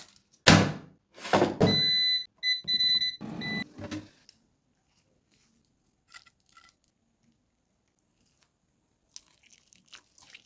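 A loud thunk and a second knock, then the Texet digital air fryer's control panel beeping as it is set to cook: one long beep followed by several short ones. Two faint beeps follow about six seconds in.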